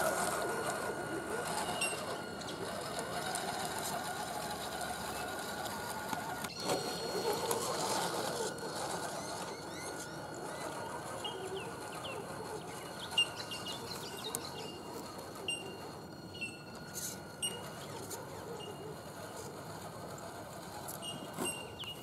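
Electric drivetrain of a radio-controlled 4x4 scale truck whining steadily as it drives through a shallow creek, splashing at first and fading as it moves off. Short bird chirps come in from about halfway.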